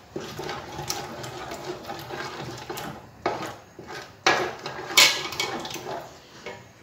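Wooden spoon stirring a thick, creamy mixture with pineapple chunks in an aluminium pot, scraping and clicking against the metal, with a few louder knocks about three to five seconds in.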